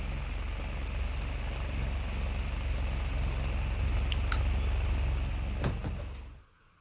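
Homemade ceiling fan running with a steady low motor hum and airflow hiss, a few sharp clicks in the second half, then the sound falls away quickly near the end.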